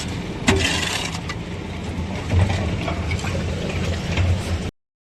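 A vehicle running, with mechanical rattling and scattered clicks over a low engine hum; the sound cuts off abruptly near the end.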